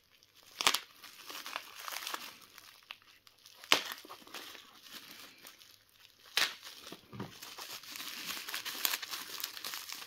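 Plastic bubble wrap crinkling and rustling as it is cut open with a knife and unwrapped by hand, with three sharp, louder crackles spread through it.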